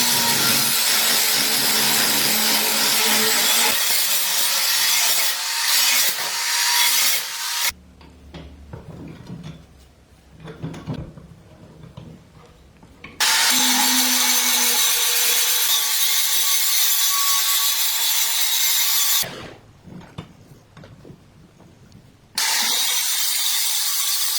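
A power tool working the metal of an old sword: a loud, steady hiss that cuts out abruptly twice, with quieter hand rubbing and scraping strokes in the gaps.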